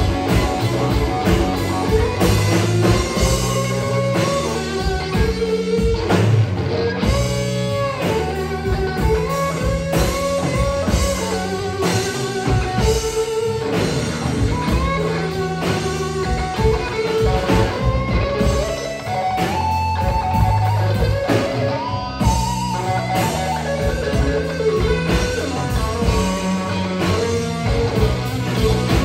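Live blues band playing: a Stratocaster electric guitar plays a lead line with bent notes over bass guitar and drum kit, with no vocals.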